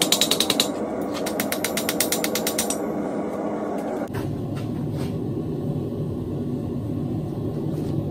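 Rapid, evenly spaced mechanical clicking, about a dozen clicks a second, in two runs. A steady low rumbling noise follows from about four seconds in.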